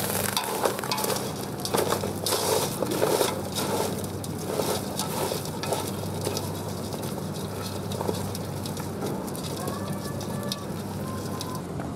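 Freshwater crabs sizzling in a hot pot on a portable gas stove, with many short clicks as the shells knock and scrape while they are stirred with chopsticks, over a steady low hum.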